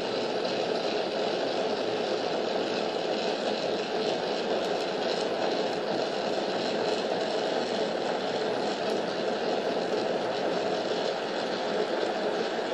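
Gas torch flame burning steadily: a constant rushing noise that holds the same level throughout.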